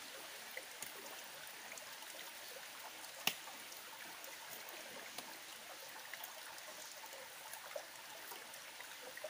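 Steady, faint running water of a stream, with scattered small ticks and one sharper click about three seconds in.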